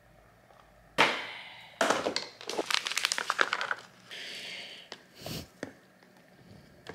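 A sharp knock about a second in, then the crinkling of a plastic microwavable rice pouch as it is squeezed and the rice is spooned out into a plastic meal-prep box, ending in a short rustle and a soft thump.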